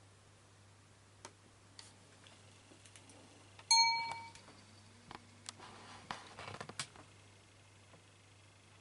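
A single bright ding, a struck object ringing out and dying away over about half a second, followed by several light clicks and a brief rustle of handling.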